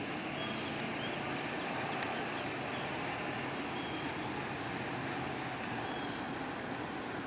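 Steady engine and road noise from an ambulance driving slowly toward the listener, with no siren sounding.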